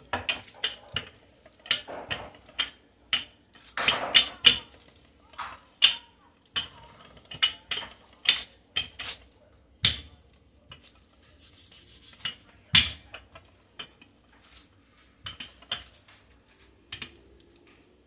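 Irregular clinks, knocks and clatters of kitchen utensils and dishes being handled.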